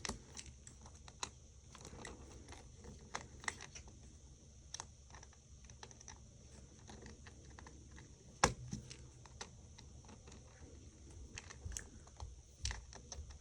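Faint, irregular clicks and ticks of small metal tools on an iPhone 5's internal screws and standoffs, which are being worked out without a standoff screwdriver, with one sharper click about eight and a half seconds in.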